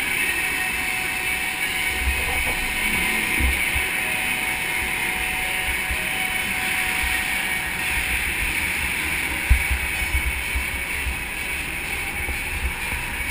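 Go-kart driving on track, heard onboard: a steady engine note mixed with rushing wind noise on the camera, with scattered low thumps, the sharpest about nine and a half seconds in.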